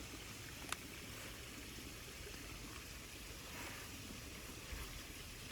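Faint steady background hiss, with one sharp click about three-quarters of a second in.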